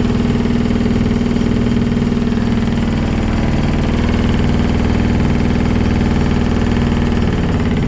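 Earthquake-house shake simulator running: a loud, steady motor rumble with a constant low hum, cutting off near the end.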